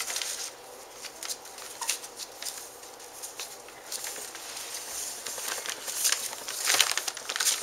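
Newspaper rustling and crinkling under a Scottish terrier puppy's scrabbling paws, with irregular scratchy clicks and scrapes that grow busier near the end.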